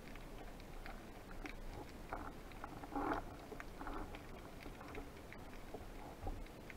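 Scattered underwater clicks and muffled knocks as the speared fish are handled against the speargun and camera, heard through the camera's waterproof housing. The loudest knock comes about three seconds in.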